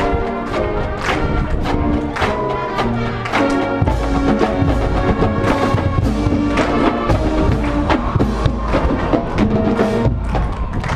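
Marching band playing: sustained horn notes over regular drum strikes, with a heavier low bass joining about four seconds in.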